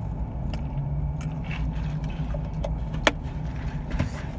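Steady low hum of a car's engine and cabin, heard from inside the car, with a sharp click about three seconds in.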